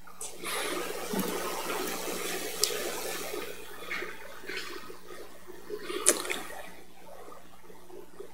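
A rushing, water-like hiss that starts suddenly and slowly fades over about six seconds, with a couple of faint clicks.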